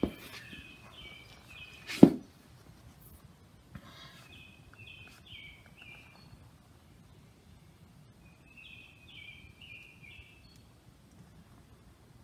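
A songbird singing a short phrase of four or five quick chirps, three times over. A sharp knock about two seconds in is the loudest sound, and a smaller click comes right at the start.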